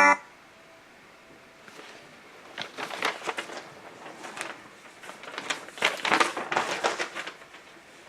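Paper rustling and crinkling in several handling bursts, as the pages of an instruction booklet are leafed through.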